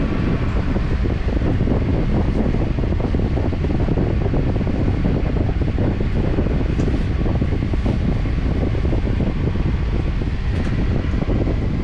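Loud, steady rushing noise of a motor-driven fan running, dropping away near the end.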